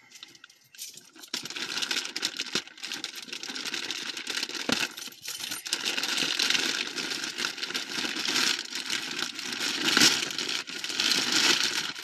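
Packaging rustling and crinkling as a parcel is unwrapped by hand: a dense, uneven run of crackly rustles that starts about a second in.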